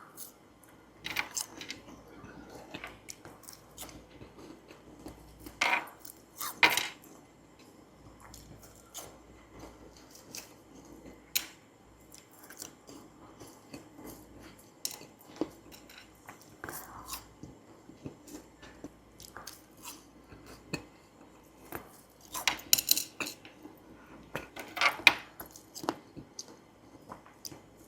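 Frozen lemon pieces being bitten and crunched close to the microphone, among scattered light clicks and clinks of a utensil against a dish. Louder crunchy bursts come about six seconds in and again a few seconds before the end.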